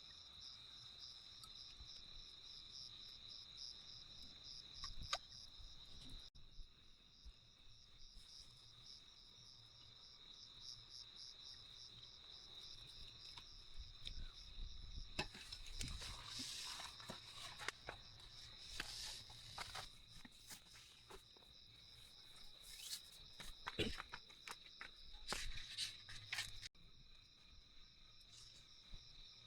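Crickets trilling steadily in a high, evenly pulsing chorus. From about halfway through, scattered clicks and knocks sound over it.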